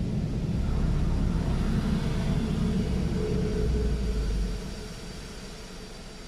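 Automatic car wash spraying the car with water, heard from inside the cabin as a loud, steady, low rumble that falls away to a quieter hiss about four and a half seconds in.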